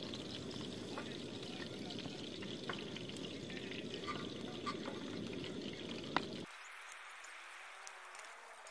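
Sucuk frying in oil in a pan, a sizzle with scattered small crackles and a few sharper pops over a steady low rush. About two-thirds of the way through, the low rush cuts off abruptly and only a fainter hiss remains.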